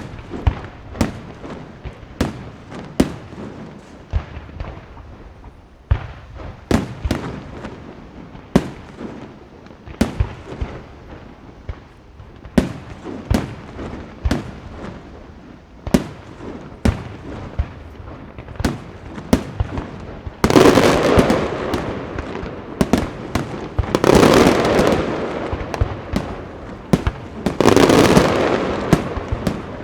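Aerial fireworks display: shells bursting in a steady series of sharp reports, one or two a second. About two-thirds through come louder waves of dense crackling bursts, three swells of a couple of seconds each.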